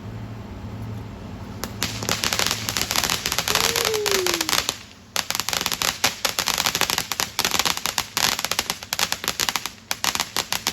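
Consumer fireworks crackling: a dense, rapid run of sharp pops and crackles starts about two seconds in, breaks off for a moment near the middle, then carries on.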